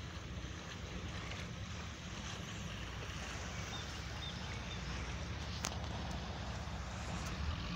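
Low, steady engine rumble of a river ferry idling at the landing ramp, with a faint even hiss over it.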